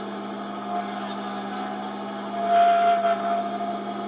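Stage amplifier humming steadily between songs, with a sustained electric guitar tone coming and going over it and a brief louder burst about two and a half seconds in.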